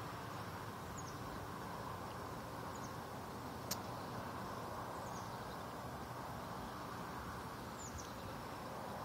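Outdoor ambience: a steady background hiss and rumble, with faint, short, high chirps every two or three seconds and a single sharp click about halfway through.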